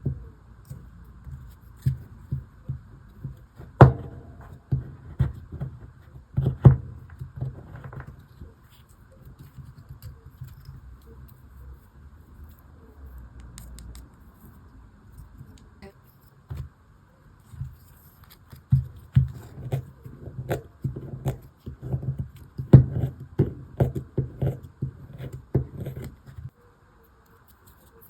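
Hands working a toy dig kit: irregular taps, knocks and scrapes of small hard pieces handled against a tabletop, quieter for several seconds in the middle, then busy again.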